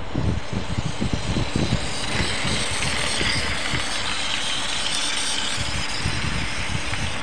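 HO scale model train running past on its track: wheels rattling on the rails and the locomotive's small electric motor whirring. There are low thumps in the first couple of seconds, and a hiss that is strongest from about two seconds in, as the locomotive passes close by.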